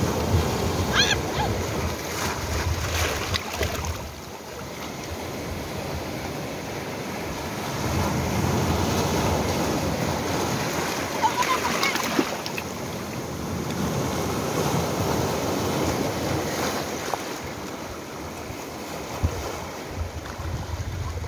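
Sea surf breaking and washing over a rocky shore, a continuous rush of water that swells louder and eases off in slow surges.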